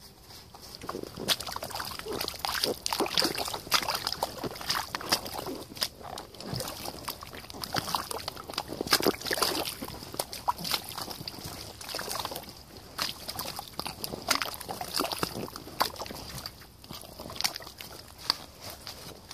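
Fagum Stomil rubber waders squelching and sloshing in thick mud and muddy water as the legs shift, with irregular wet sucking and splashing sounds.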